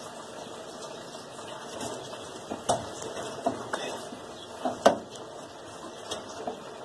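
Sharp metal clicks and taps from a screwdriver working a stiff quarter-turn valve on a hot-water heating return line, over a steady low rush. The taps are clustered in the middle, the loudest just before the end of the cluster.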